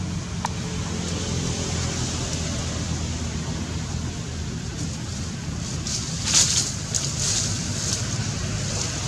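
A boat's engine running steadily, with wind and water noise over it. A few brief sharp noises stand out about six to seven seconds in.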